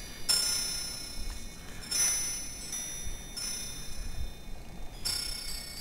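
Wind chimes ringing: four clusters of high metal tones, each struck and left to fade slowly, with low wind rumble on the microphone.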